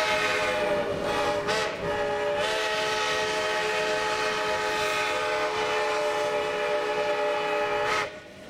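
Shay geared steam locomotive's chime whistle blowing at a whistle post: a several-note chord that breaks off twice in the first two and a half seconds, then one long steady blast that cuts off suddenly near the end. The train's running noise continues underneath.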